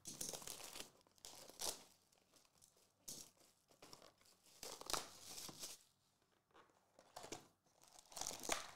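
Cardboard trading-card box being opened by hand: tearing and crinkling of card and wrapper in a string of short rustles.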